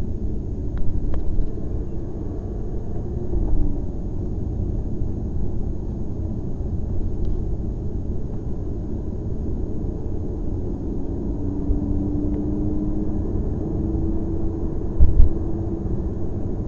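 Lamborghini Gallardo's V10 engine and road noise heard from inside the cabin while driving, a steady low rumble. The engine note climbs gently for a few seconds about two-thirds of the way in, and a brief thump comes near the end.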